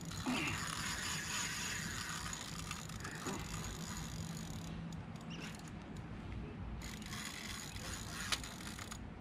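Fishing reel's drag ratcheting as a hooked redtail catfish pulls line off against it. It comes in two spells: one through the first four and a half seconds, and one again from about seven seconds in.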